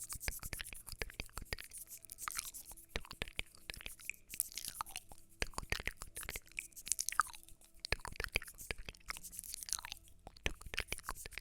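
Close-miked ASMR crunching: dense, crisp clicks and crackles with short falling swishes every second or so.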